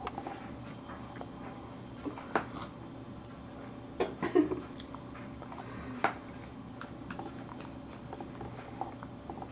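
A baby eating cereal from a plastic bowl: small mouth sounds and a few sharp taps on the plastic bowl and tray, about three times across the stretch, over a steady low hum.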